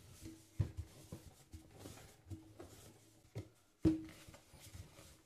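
Plastic rolling pin rolling out bread dough on a floured stone countertop: soft rubbing and rolling with several knocks as the pin is set down and shifted, the loudest a little under four seconds in.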